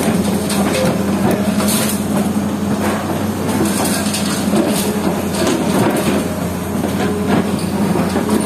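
Hitachi Zaxis hydraulic excavator's diesel engine running steadily under hydraulic load, with frequent clattering and crunching of concrete rubble as its pulverizer attachment works the debris.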